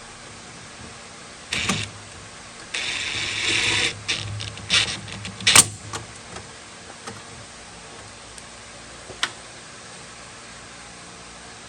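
Metal clicks and rattles from fitting a trunk lock into a car's trunk lid: a short rattle, a rasping stretch of about a second, then a run of sharp clicks with the loudest one near the middle and a last click later on.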